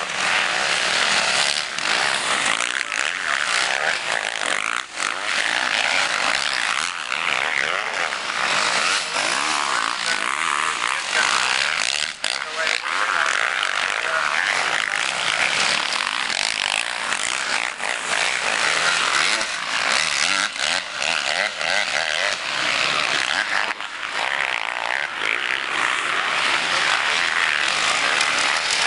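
Motocross bike engines revving hard through a dirt corner, one bike after another, the pitch wavering as they accelerate and ease off; the sound is loud and harsh on the camera's microphone.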